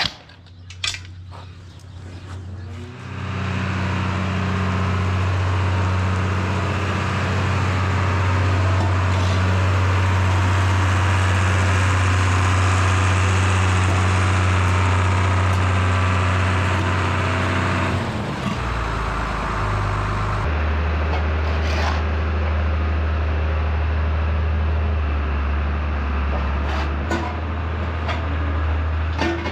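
Engine of a farm machine running steadily under load with a hiss on top. About 18 seconds in it drops off, then settles to a lower steady note. A few sharp knocks come right at the start.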